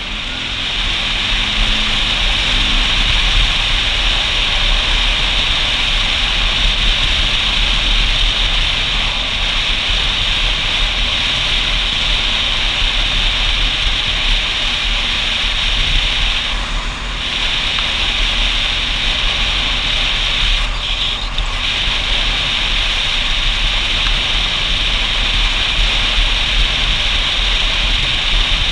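Steady rush of wind and road noise on a camera mounted on a moving motorcycle riding a wet road, with a low buffeting rumble underneath and the engine heard only faintly. In the first few seconds the engine's pitch rises as the bike accelerates, and the rush briefly drops twice in the second half.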